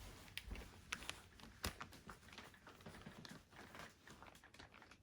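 Faint, scattered light clicks and soft rustling from small objects being handled, in a quiet room.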